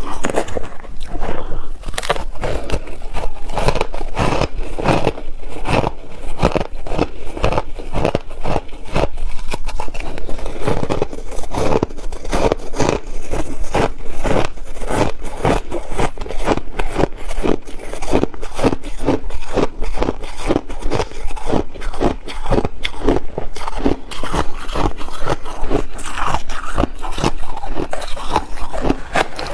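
Ice being bitten and chewed close to the microphone: a continuous run of rapid crunches and crackles.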